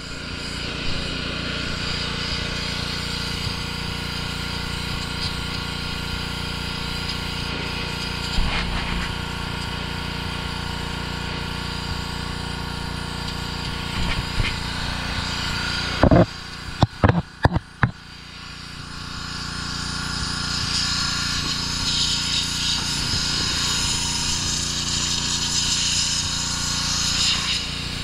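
Troy-Bilt gas pressure washer running steadily, with the hiss of its water jet spraying. A few sharp knocks come about two-thirds of the way through, after which the spray hiss grows louder.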